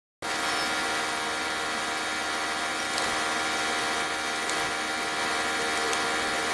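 Woodworking machinery running steadily with a constant, many-toned drone, with a few faint clicks over it.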